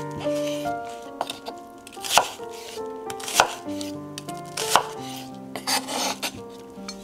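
Chef's knife chopping a white onion on a wooden chopping board: three sharp knocks of the blade hitting the board, a little over a second apart, with a crisp slicing sound through the onion near the end.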